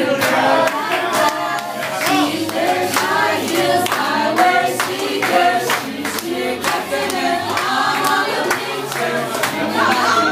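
Voices singing along to a karaoke backing track with a steady beat.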